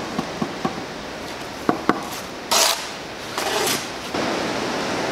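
Brick trowel at work on fresh mortar: a few light taps of the trowel handle bedding a brick down, two sharper knocks just under two seconds in, then the metal blade scraping mortar in short strokes.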